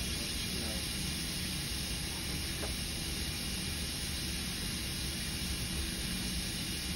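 Steady hiss over a low rumble, even and unchanging.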